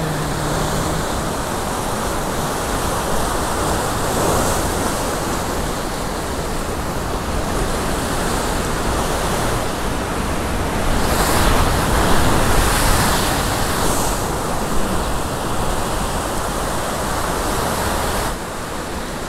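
Ocean surf breaking and washing around coastal rocks: a steady rush of white water that swells louder for a few seconds about two-thirds of the way through.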